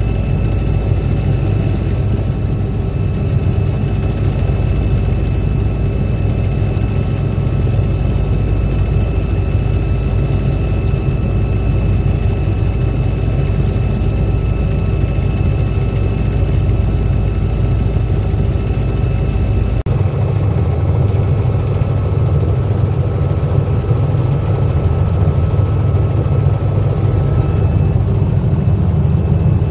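Helicopter in flight heard from inside the cabin: a steady, loud drone of engine and rotor with a faint constant high whine. There is a momentary break about two-thirds of the way through.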